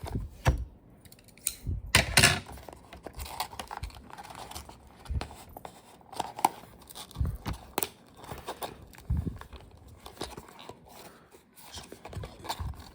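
Toy packaging being handled and torn at by hand: irregular rustling, crinkling and sharp clicks, with the loudest tearing about two seconds in.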